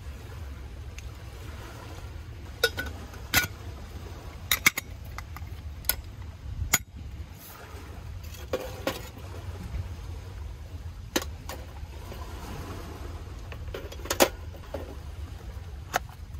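Scattered sharp clinks and knocks of metal camping gear being handled in a steel Stanley lunch box, as a stainless steel cook pot is lifted out and small items are moved. The loudest clink comes a little before the end, over a steady low rumble.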